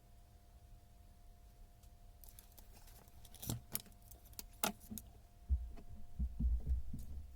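Handling noise of small metal parts or tools: a run of light metallic clicks and clinks, then several low thuds near the end.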